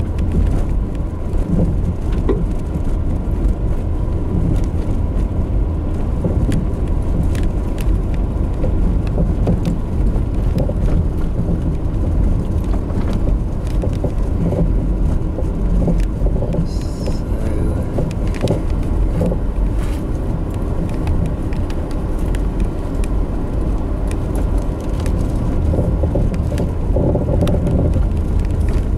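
Car driving slowly over a rough dirt track, heard from inside the cabin: a steady low engine and tyre rumble with frequent small knocks and crackles as the tyres go over stones and bumps.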